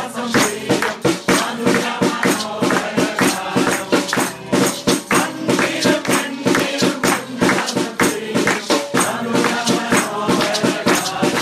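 A mixed group of voices singing a carol together, accompanied by a strummed acoustic guitar and a steady beat of shaken hand percussion such as maracas.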